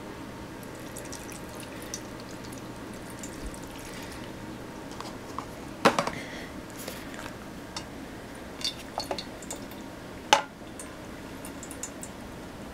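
Water draining from a spill-resistant computer keyboard, dripping and trickling into a glass baking dish below, with scattered small drip ticks. Two sharp knocks stand out, about six and ten seconds in.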